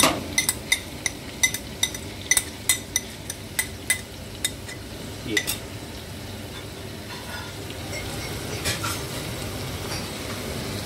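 A spoon tapping and scraping sharply on a ceramic plate, about a dozen quick clinks, as the tomato and green chilli paste is knocked off into the pot. After about five seconds the clinks stop and the browned lamb frying in the pot sizzles steadily, growing a little louder toward the end.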